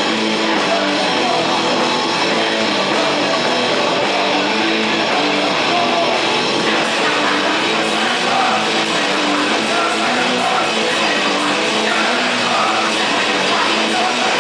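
A live rock band playing loud, guitar-heavy music without a break.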